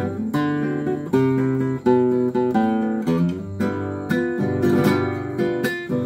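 Nylon-string classical guitar played solo: a picked melody of single notes over bass notes, with occasional strummed chords.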